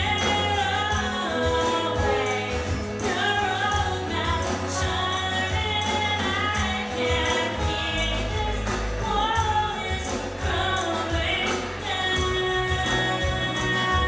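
Live rock band playing a song: a woman singing lead while strumming an acoustic guitar, backed by drums and electric guitar.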